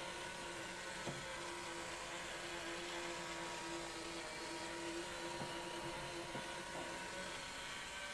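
Small LEGO electric motor whirring steadily as it drives a plastic Technic linkage through its gears, with a few faint clicks from the moving parts.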